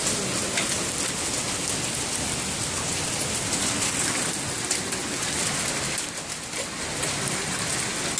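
Hailstorm: heavy rain and hail falling steadily, a dense even hiss with scattered sharp ticks of hailstones striking.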